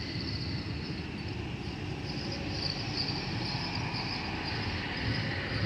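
Steady low rumble of a GWR Class 802 bi-mode train, with a faint high whine above it.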